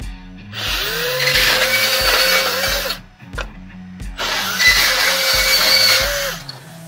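Makita 18V cordless portable band saw (PB183D) cutting through a metal greenhouse rail, run twice for about two and a half seconds each. Each time the motor's whine rises quickly to a steady pitch and then stops. Background music with a steady beat plays throughout.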